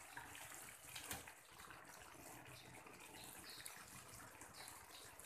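Faint simmering of chicken and broccoli in oyster sauce in a pan on a gas stove, a soft even hiss, with one light knock of the wooden spatula about a second in.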